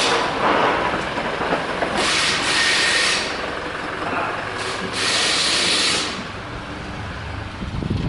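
Loud hissing noise that swells strongly twice, about two seconds in and again about five seconds in.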